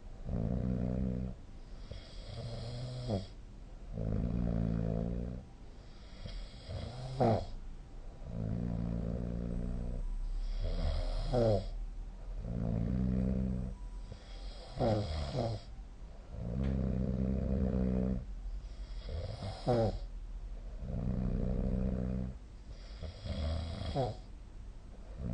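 A sleeping person snoring in a steady rhythm, about one breath every four seconds. Each breath has a low, buzzing snore and a breathier, hissing part.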